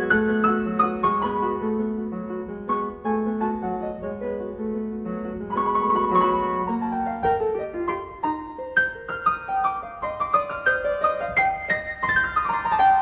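Piano playing a quick classical passage of many separate notes, with descending runs midway and near the end.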